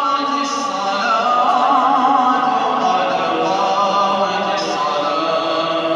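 A male voice chanting in long held notes, with a wavering, ornamented run about a second and a half in.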